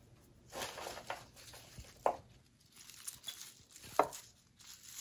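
Wooden chopsticks placing lettuce leaves and bean sprouts into a ceramic bowl of rice noodles: soft, scattered rustling of the greens, with two sharp clicks of the chopsticks against the bowl, about two seconds in and near the end.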